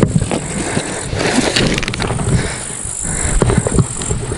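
Handling noise from fishing gear being moved about: rustling of a fabric rod case and bag, with scattered knocks and a quick run of clicks about a second and a half in, over a steady low rumble.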